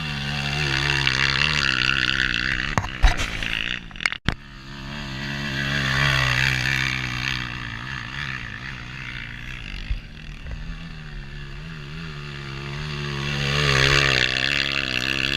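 Off-road trail motorcycle engines revving hard up a steep hill climb, the pitch wavering as throttle is worked, swelling about a second in, again around six seconds and near the end. A couple of sharp knocks sound around three to four seconds in.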